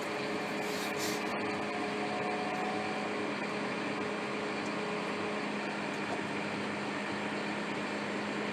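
John Deere 6155R's six-cylinder diesel idling steadily just after a cold start, warming up, heard inside the tractor cab. A short hiss about a second in, followed by a click.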